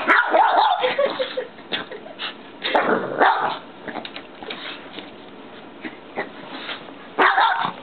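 Shih tzu barking in short bursts: at the start, again about three seconds in, and near the end, with a quieter stretch between.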